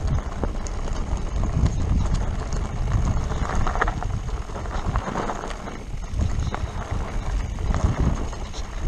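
Mountain bike running fast down a rough dirt and gravel singletrack, picked up by a camera mounted on the bike or rider: tyres crunching over stones and the bike rattling and knocking at irregular moments, over a steady low rumble of wind on the microphone.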